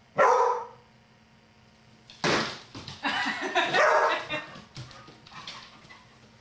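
Dalmatian barking: one bark just after the start, another about two seconds in, then a few seconds of further barking and vocal sounds.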